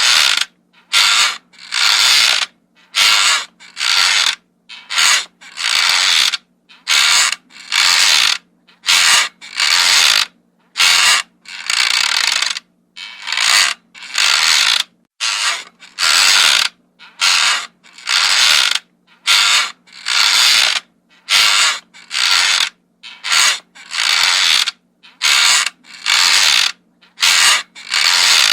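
Wooden rocking chair creaking as it rocks, one short creak about every second in an even rhythm.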